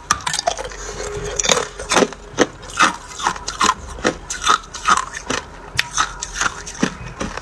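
Ice being crunched and chewed between the teeth, with sharp crunches repeating in a steady rhythm of about two and a half a second.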